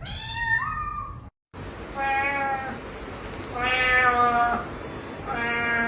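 Domestic cat meowing: a rising call, then after a short break three long, drawn-out meows.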